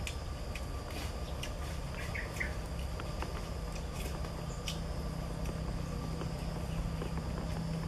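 Woodland ambience: a steady high insect drone over a low rumble, with a few short chirps and scattered clicks.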